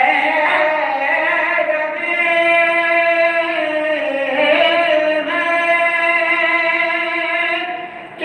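Soz-khwani: male voices chanting an Urdu elegiac soz in long held notes, without instruments. The chant dips briefly near the end for a breath.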